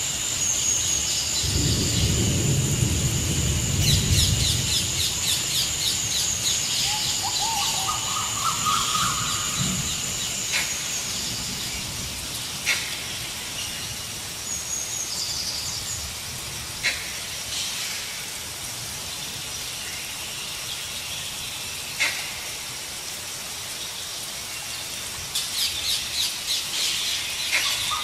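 Forest ambience: birds calling and chirping, with rapid trills around 4 s and again near the end. Over this runs a steady high-pitched drone that fades out a little before halfway. There is a low rumble a couple of seconds in and a few sharp isolated clicks later on.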